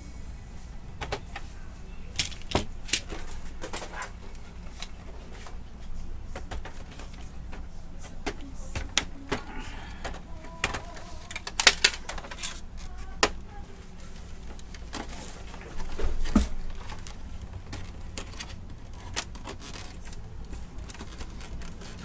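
Scattered plastic clicks and knocks from a disassembled Brother DCP-T710W inkjet printer being handled as its scanner unit is lifted, over a steady low hum. The loudest knocks come just before halfway and again about three quarters in.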